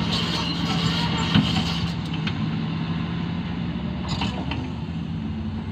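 Hitachi excavator's diesel engine running with a steady low hum, with a couple of sharp knocks from the machine at work.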